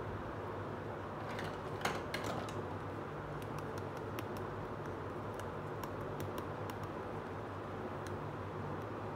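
Light plastic clicks and taps from hands handling a small plastic toy stove: a cluster of sharper clicks about two seconds in, then scattered small ticks, over a steady low hum.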